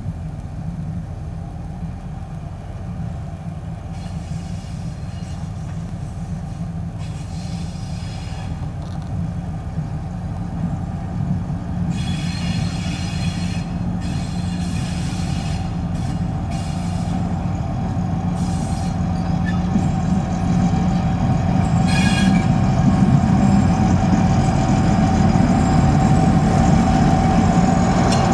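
M62 diesel locomotive's two-stroke V12 engine running with a steady whine as the locomotive rolls slowly closer, growing louder. Brief high-pitched squeals come and go over it.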